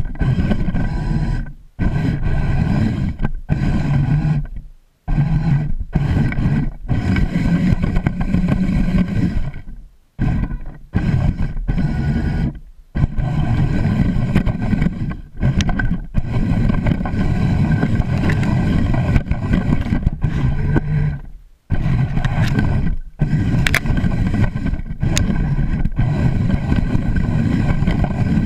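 Hercules 4WD robot's electric drive motors and gearboxes running close to the onboard camera, its wheels rolling over grass and dry leaves. The drive cuts out and starts again several times.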